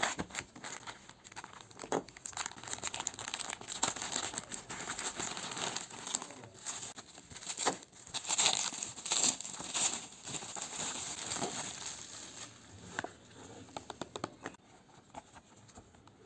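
Plastic packaging crinkling and tearing as a parcel is unwrapped by hand, with scattered sharp crackles; busiest about halfway through and quieter near the end.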